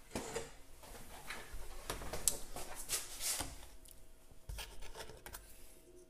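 Handling noise: clothing rustling and hands scraping and tapping on the bar and bottle, with a few light clicks and knocks, loudest in the middle.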